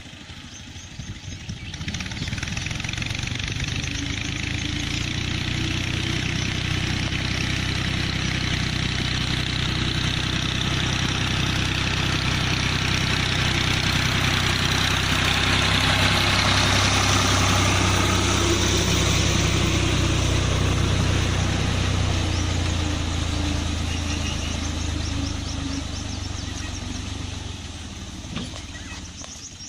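Tractor engine running with broad mechanical noise, growing louder to a peak around the middle and fading again toward the end.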